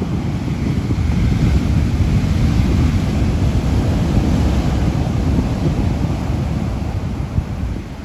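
Heavy ocean surf breaking and washing up a sand beach, with strong wind rumbling on the microphone. The noise builds in the first second and eases near the end.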